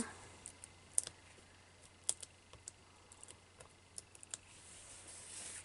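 Light, scattered clicks and taps of fingers and nails peeling foam adhesive dots off their backing sheet and pressing them onto the back of a paper label, about a dozen small ticks, with a faint soft rustle near the end.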